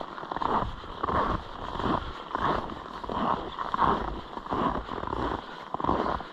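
Footsteps crunching in snow, a steady step about every two-thirds of a second.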